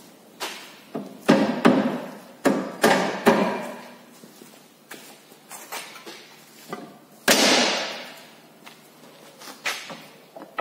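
Irregular metal knocks and clanks from a car's front suspension lower control arm and ball joint being worked into place: a quick cluster of strikes in the first few seconds, scattered lighter ones after, and one heavy clank about seven seconds in.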